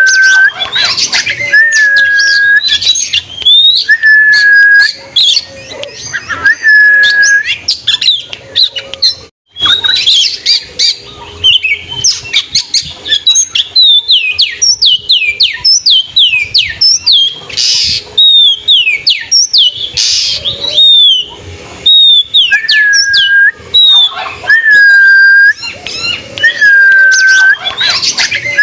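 Oriental magpie-robin (kacer) singing loudly and continuously. Long clear whistles repeat, mixed with quick rising slurs, and a fast run of falling notes comes in the middle of the song. There is a brief break a little past nine seconds in.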